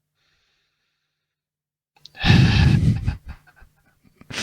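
A person's loud sigh, a heavy breath pushed straight into the microphone, about two seconds in, followed by a few faint breathy scraps.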